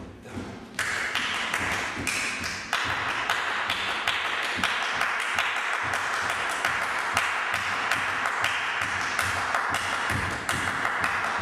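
Dancers' feet tapping and stamping on a wooden floor in a quick, even rhythm, with hand clapping keeping the beat.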